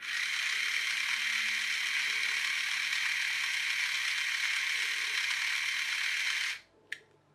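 Small electric toy-train motor running with its plastic gear train turning, a steady whir that starts abruptly and cuts off after about six and a half seconds.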